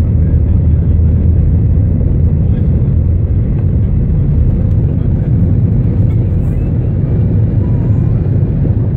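Jet airliner engines at takeoff thrust heard from inside the cabin during the takeoff roll: a loud, steady, low rumble.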